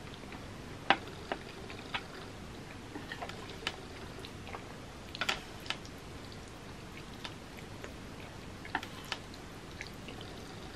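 Chopsticks clicking and tapping irregularly against a metal sheet pan as noodles are gathered and lifted, the loudest click about a second in.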